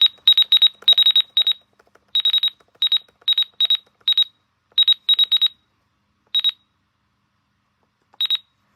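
A weather radio's electronic beeper sounding short, high-pitched beeps in irregular clusters of one to four, with uneven gaps between them. The beeps pause for about two seconds, then a last short pair comes near the end.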